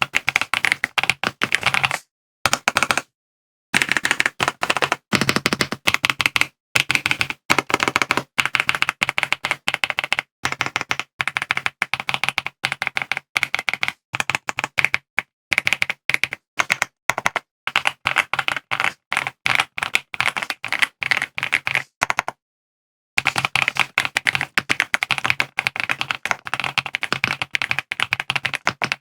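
Fast typing on an AULA F99 gasket-mount plastic mechanical keyboard with LEOBOG Green linear switches (POM stems), the keys clacking in quick succession and pausing briefly twice.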